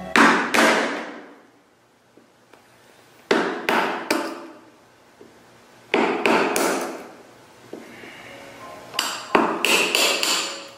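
Metal-headed hammer striking a chisel as it chops a notch into a wooden board. About eleven sharp blows come in groups of two to four, a few seconds apart.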